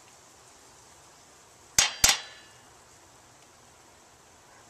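Two sharp metallic clangs about a quarter second apart, with a brief ring: a metal spoon knocked against the rim of a steel skillet.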